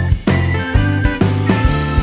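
Background music with a steady beat, with guitar and drums.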